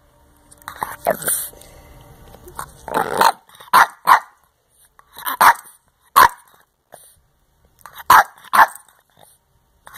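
Boston Terrier barking at its owner: a drawn-out call about a second in, then a string of short sharp barks, some in quick pairs.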